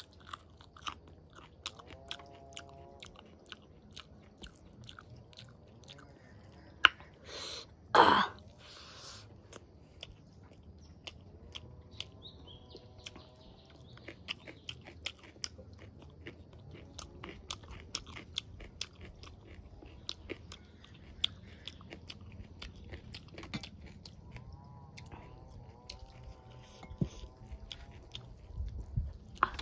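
A person chewing and lip-smacking while eating rice and vegetables by hand, a steady run of small wet mouth clicks, with one louder burst about eight seconds in.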